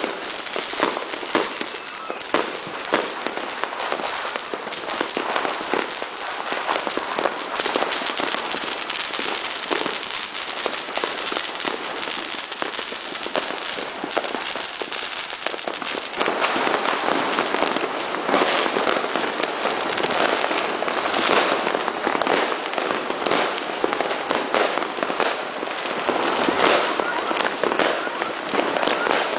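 A continuous barrage of fireworks and firecrackers: many overlapping bangs, pops and crackles with no pause. The barrage grows louder and denser about halfway through.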